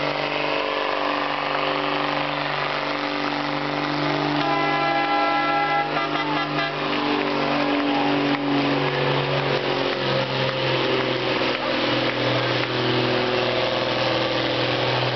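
1962 Brockway truck's engine running hard under load while dragging a truck-pull sled, a steady deep drone that drops slightly in pitch partway through. A horn sounds for about two seconds near the middle.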